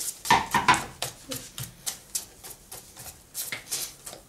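A bare hand mixing thick banana cake batter in a stainless steel pot: a quick run of wet slaps and squelches, about three a second, loudest near the start.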